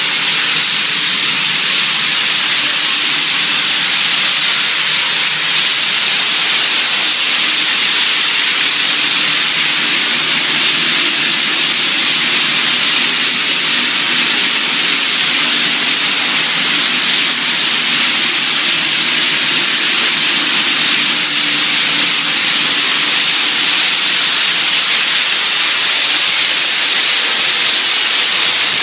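Spray booth of an automatic spray painting line running: a loud, steady hiss of air, with a faint low hum underneath.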